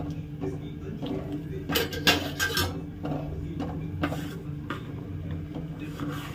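Wooden spatula scraping and knocking against an aluminium pan as semolina is stirred into boiling water for upma. There is a burst of clatter about two seconds in and a few lighter knocks later, over a steady low hum.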